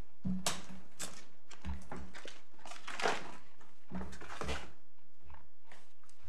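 Paper rustling as pages of a court bundle are turned and papers handled on a desk: a run of short rustles, some with a soft thud, coming in small clusters.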